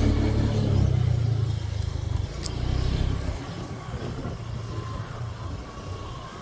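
Motor vehicle engine running loud and low, with a brief rev, then falling away about three seconds in, leaving quieter traffic noise.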